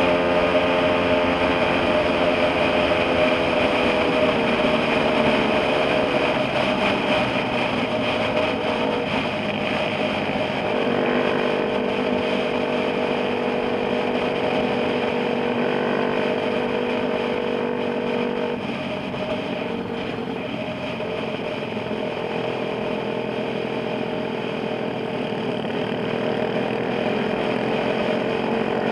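Motorcycle engine running at cruising speed, heard from on the bike itself, with wind and road noise. The engine note falls about five seconds in, picks up again around ten seconds, and then mostly holds steady.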